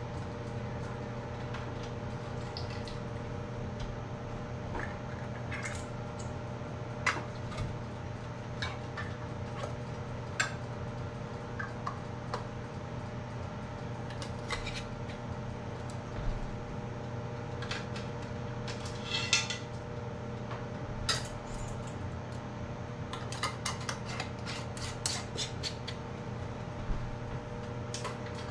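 Scattered light metallic clinks and clatter of canning lids being taken from hot water and set onto filled glass jars, with the clicks thicker in the second half. A steady hum runs underneath.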